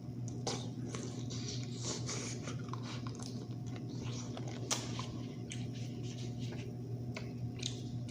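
Close-up chewing and biting of seafood, with scattered small crunches and crackles and one sharp click about four and a half seconds in. A steady low hum runs underneath.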